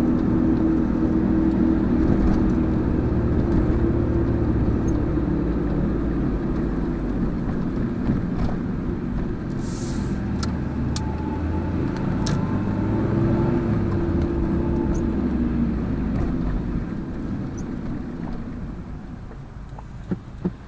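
Small car's engine and road noise heard from inside the cabin while driving, the engine note slowly rising and falling. A few faint clicks around the middle, and the noise grows quieter near the end.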